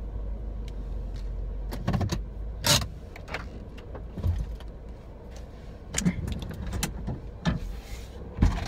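Inside a car: a steady low rumble, with a handful of short clicks and knocks scattered through.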